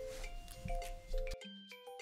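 Background music: a light tune of short pitched notes, several a second.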